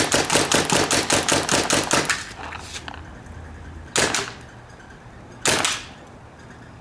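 Paintball gun firing a rapid string of shots, about eight a second, that stops about two seconds in, followed by two single shots a second and a half apart.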